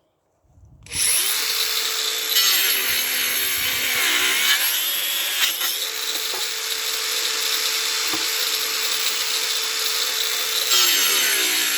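DeWalt DCG405FN cordless brushless angle grinder, run on a 1.5 Ah battery, starting up about a second in and cutting through a wooden board with a wood-cutting disc. The motor's pitch sags repeatedly under load: the small battery cannot hold the grinder's speed, so the cut is slow.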